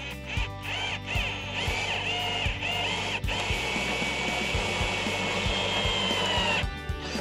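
Electric driver motor whining, first in short spurts that speed up and slow down, then held at steady speed for about three seconds before stopping suddenly near the end. Background music with a steady beat plays underneath.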